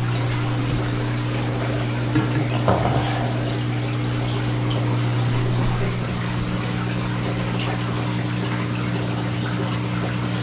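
Saltwater aquarium filtration running: steady trickling and splashing water over a constant electric hum from the pumps. There is a short knock about two to three seconds in.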